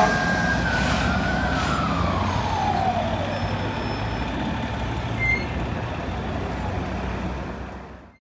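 Fire engine siren held high, then winding down and falling steadily in pitch over about two seconds, over the steady rumble of city traffic. A short high chirp sounds about five seconds in, and everything fades out near the end.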